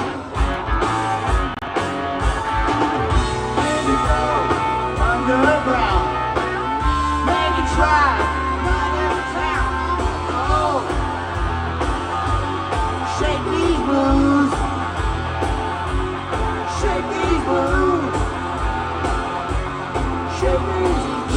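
Rock band playing live: electric guitar lead with bending notes over bass and a steady drum beat.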